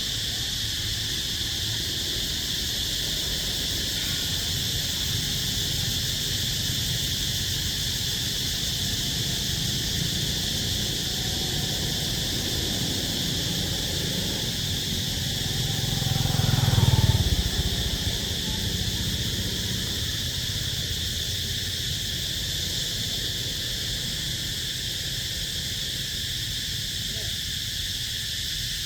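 Steady insect chorus, a constant high buzzing drone, over a low rumble that swells and fades about seventeen seconds in.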